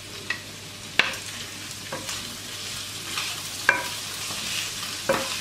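Sliced turkey meat sizzling in hot oil and melting butter in a frying pan, with a steady hiss. A wooden spatula stirs it, knocking sharply against the pan four times.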